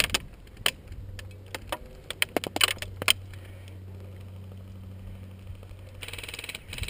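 Airsoft gunfire: about a dozen sharp, irregular single snaps over the first three seconds, some in quick pairs, then it stops.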